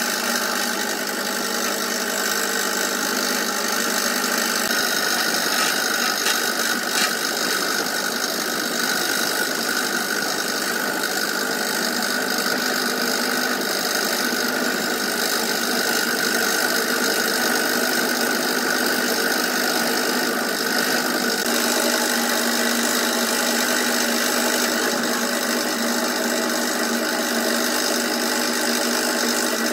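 Scroll saw running steadily, its fine blade cutting curves in a block of wood. Its tone shifts once, about two-thirds of the way through.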